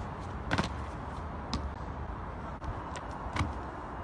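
Trainers striking stone paving as a runner sprints, a few sharp footfalls, the clearest about half a second in, over a low rumble of wind on the microphone.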